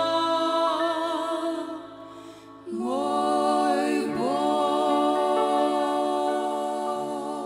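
Two women singing long held notes in harmony with vibrato, over grand piano accompaniment. About three seconds in, a new chord slides in and is held, starting to fade near the end as the song closes.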